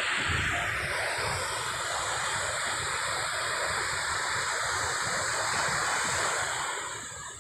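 Ocean surf breaking and washing up a sandy beach: a steady rushing that eases slightly near the end.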